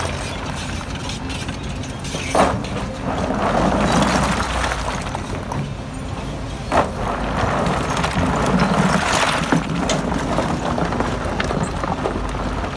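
Heavy diesel earthmoving machinery running steadily, with two sharp knocks, one about two and a half seconds in and another near seven seconds.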